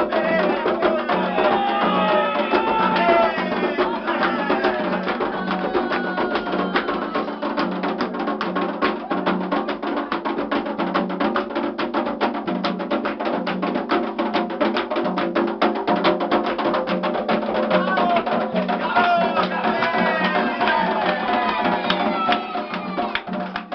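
Music: voices singing over fast, dense drumming with a clicking wood-block-like beat. The singing comes in strongest at the start and again near the end.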